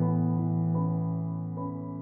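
Calm instrumental background music: slow, held keyboard chords, with a new note coming in twice.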